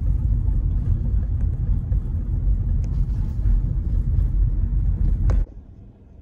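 Car cabin noise while driving: a steady low rumble of road and engine noise that cuts off suddenly about five seconds in, leaving only a faint low hum.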